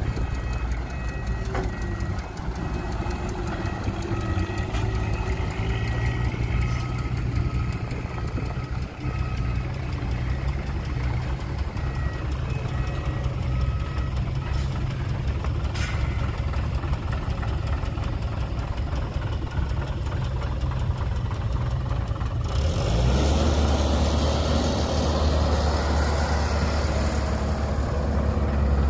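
Diesel engines of a loaded dump truck and an excavator idling steadily, with intermittent high beeping over the first half. About 22 seconds in the engine sound gets louder and harsher.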